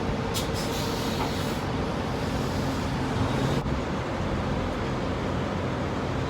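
Steady low hum of an idling vehicle engine, with a couple of faint clicks about half a second in.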